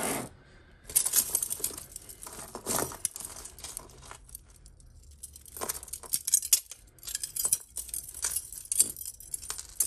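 Costume jewellery clinking and jangling: metal and glass pieces knocking together as they are picked through by hand and dropped into a pile, in irregular clusters with a lull in the middle.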